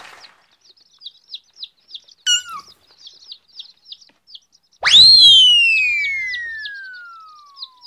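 Cartoon sound effects: small birds twittering steadily, a short stepped falling blip about two seconds in, then, loudest, a whistle that swoops up about five seconds in and slides slowly down in pitch for nearly three seconds.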